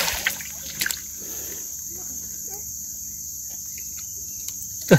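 Steady, high-pitched drone of tropical forest insects, with a few short splashes of shallow river water in the first second.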